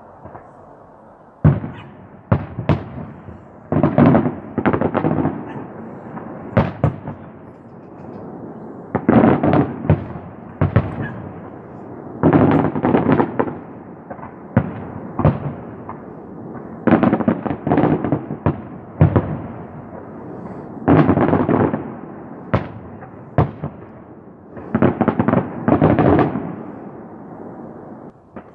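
A fireworks display going off in repeated volleys of sharp bangs. A new cluster comes every two or three seconds, each with a rumbling tail after it.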